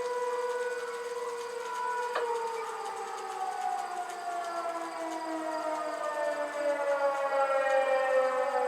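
Outdoor fire warning siren sounding during a test, holding one pitch for about two seconds and then winding slowly and steadily down in pitch.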